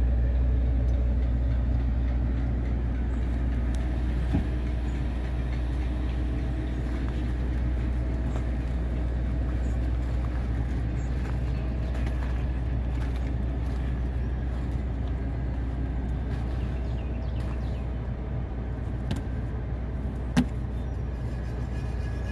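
A truck engine idling steadily, a low even drone close by. A light knock comes about 4 seconds in, and a sharp metallic click about 20 seconds in.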